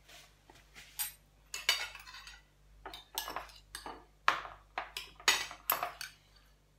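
Metal spoons and forks clinking against ceramic plates and a porcelain bowl as tomato salad is served out, a string of irregular clinks that grows louder after a few seconds and stops about six seconds in.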